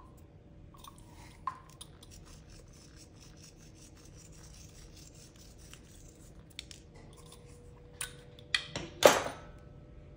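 Small glass spice jars being handled while seeds are sprinkled onto pastry: faint light ticks and rubbing, a sharper knock early on, then a few clicks and a short, louder rattling clink of the glass jar about nine seconds in.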